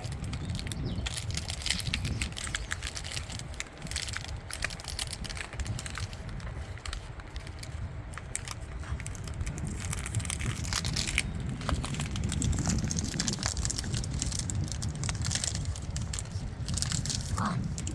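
Labrador puppies chewing on sockos, plastic bottles stuffed inside socks: a constant, irregular crackle and crunch of the plastic, much like a crackling fire.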